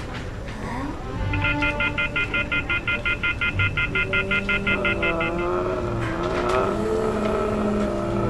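An electronic phone ringer trilling: a high, rapidly pulsing ring, about seven pulses a second, starting about a second in and stopping after about four seconds, over background music that carries on.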